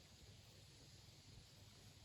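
Near silence: faint steady background hiss and low hum.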